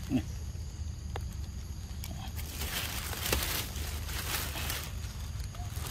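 Outdoor ambience with a steady low rumble, a brief low falling call right at the start, a few small clicks and some rustling as a young macaque handles pieces of fruit on a stone.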